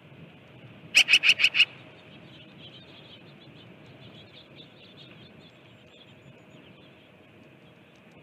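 A bird calling: a loud burst of five quick, harsh notes about a second in, followed by faint twittering of small birds.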